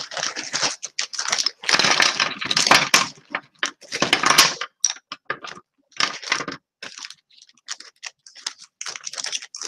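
Acrylic sheets and small laser-cut pieces being handled and slid about on a tabletop: irregular clacks, scrapes and rustles, busiest in the first five seconds and sparser after.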